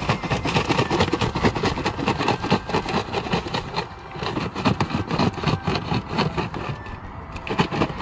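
Live Asian paddle crabs (bakhaji) tipped out of a plastic bucket onto pavement: a dense, irregular clatter of shells knocking and scrabbling, with road traffic running past.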